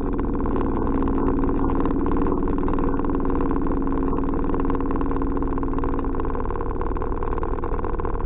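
Cessna light aircraft's piston engine and propeller droning steadily, heard inside the cabin. A steady hum within the drone fades out about six seconds in.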